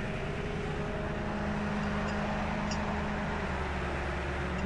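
Tow truck's engine running steadily, a low even hum with a steady tone above it, a little louder from about two seconds in.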